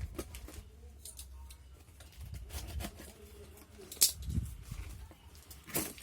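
Packaging being handled and opened by hand: scattered rustles and clicks, with a sharp snap about four seconds in and another near the end.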